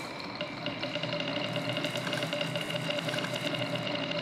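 Marbles rolling in a line down wooden chute tracks, a fast, steady clatter of small ticks against the wood, with a ringing hum joining in about half a second in.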